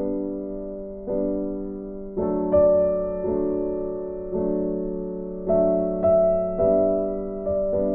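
Background music: soft piano playing slow chords, a new chord struck about once a second and left to fade.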